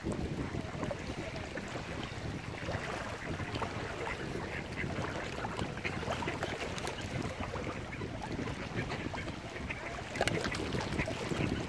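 Mallard ducks quacking, short scattered calls over a steady low background noise.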